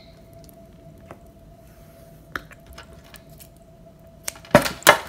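Electrical tape being handled while wrapping wire connectors: a few faint clicks, then two short, loud rips of tape pulled off the roll near the end.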